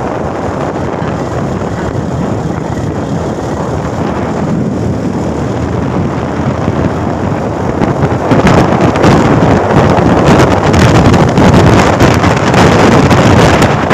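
Wind rushing over the microphone on a moving motorcycle, with the bike's running noise beneath it. It grows louder and gustier about eight seconds in.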